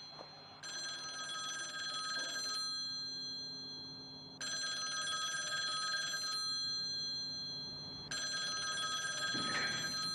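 Rotary-dial desk telephone's bell ringing for an incoming call: three rings of about two seconds each, about two seconds apart.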